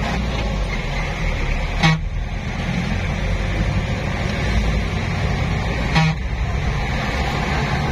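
Jeep engine running with a steady low rumble, heard from inside the cab, with two short horn toots, one about two seconds in and one about six seconds in.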